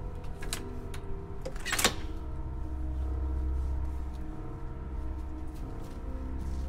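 A low, steady music drone with sustained notes, under the sharp metallic click of an entry door's electronic lock releasing after a key-card swipe, about two seconds in, with a few lighter clicks before it.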